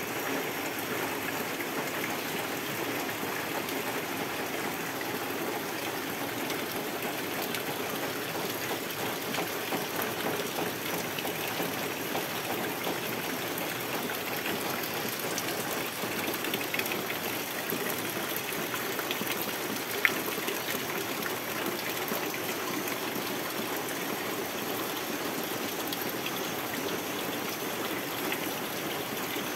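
Steady rain falling and splashing on water and leaves, with one brief sharp click about twenty seconds in.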